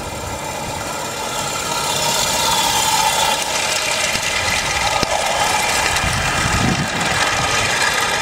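Live-steam model locomotive and its train of wagons running past on the track, with steam hissing and wheels rolling. It grows louder about two seconds in as the wagons pass close by.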